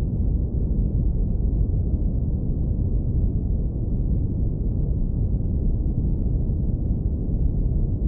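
Synthetic brown noise, low-pass filtered to a warm, deep rumble. It is a steady noise with no tones or changes, its energy heavy in the lowest bass.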